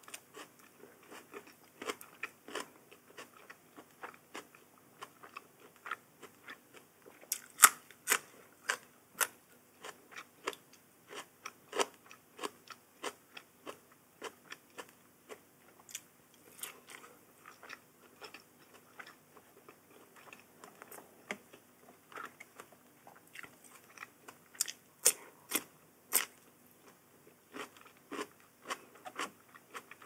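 Close-up eating sounds: crisp raw vegetables and food bitten and crunched between the teeth, irregular sharp crunches several times a second, with a few louder bites about eight seconds in and again near the end.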